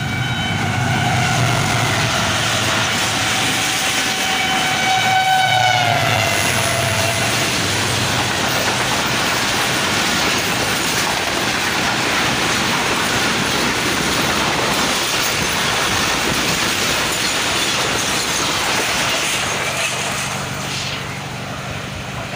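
An HGMU-30 diesel locomotive sounds its horn as the express approaches; the horn drops in pitch as it passes, about six seconds in. The train then rushes past with wheels clattering on the rails, and the sound fades near the end.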